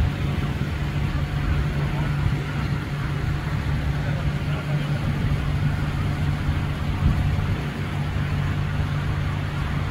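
A motor vehicle's engine idling steadily, a constant low hum.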